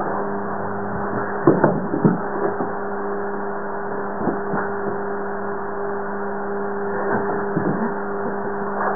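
A steady electric hum throughout, with short scuffling and snuffling noises from a French bulldog rolling and pawing on a towel, in clusters about a second and a half in, around four seconds in, and again around seven seconds in.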